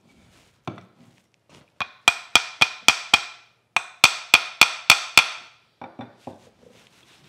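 Small brass-headed hammer tapping on the cast-iron frog of a rusty Stanley Bedrock 604-1/2 hand plane to drive out a pin. It gives five quick taps, a short pause, then six more, each with a brief metallic ring. Fainter handling knocks come before and after.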